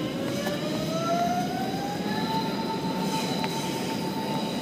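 Train running over a noisy rumble, with a whine that rises in pitch for about two seconds and then holds steady.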